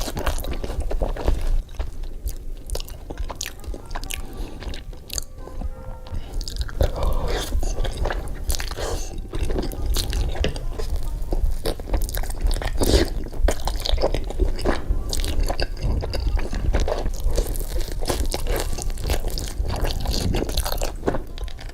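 Close-miked mukbang eating: a person biting and chewing food with crunchy bites, over background music.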